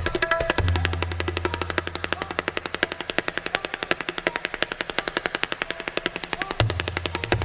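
Tabla playing a very fast, continuous stream of strokes in a galloping pattern that imitates a running horse. The bayan's deep bass boom swells about half a second in, fades over the next couple of seconds, and comes back near the end.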